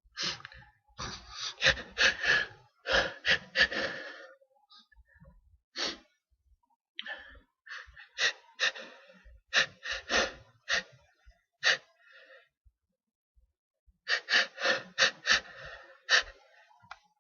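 A person's rapid hitching gasps, the jerky catching in-breaths of a sneeze building up, in three runs of several quick catches a second, the last near the end.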